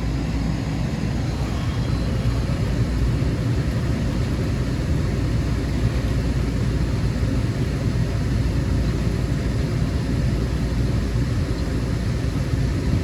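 Tecumseh refrigeration condensing unit running steadily: its hermetic compressor and condenser fan give a continuous low hum. The unit is back on after cutting in on its pump-down low-pressure switch.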